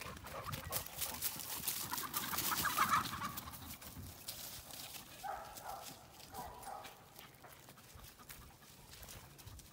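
North American Mastiff puppies running and tussling on dry grass and leaves, their paws rustling and scuffing, busiest in the first few seconds. A few short high calls follow about halfway through.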